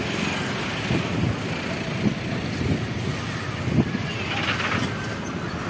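Road traffic passing close by: trucks, cars and motorcycles driving past in a steady rumble of engines and tyres, with two brief knocks about two and four seconds in.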